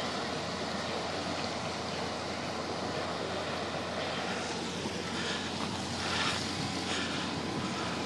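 Steady rushing noise of wind and sea water.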